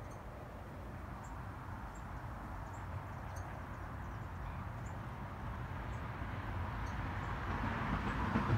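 Outdoor background noise: a steady low rumble with a wider hiss that grows louder toward the end, and faint, short, high chirps scattered through it.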